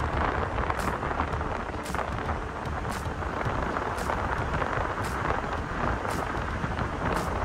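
Steady rush of wind and tyre noise from a car driving along a paved road, heard from inside the car, with a low rumble underneath. A faint high tick sounds about once a second.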